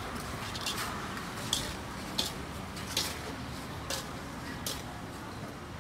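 Kitchen utensils clicking, a short sharp tap roughly every second, over steady background noise.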